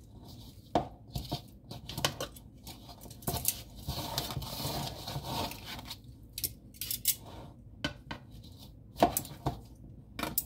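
Metal kitchen tongs clacking against each other and against a plastic bowl while tossing seasoned raw chicken wings. The clacks come irregularly, the loudest about a second in and near the end, with a stretch of rubbing and scraping in the middle.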